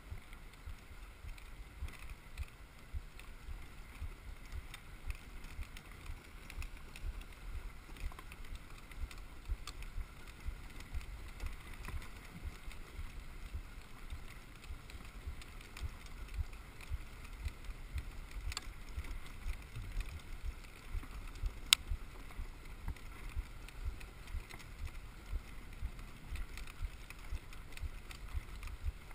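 Dog sled running over packed snow: steady scraping hiss of the runners, with frequent low knocks and bumps as the sled rides the trail, and one sharp click about three-quarters of the way through.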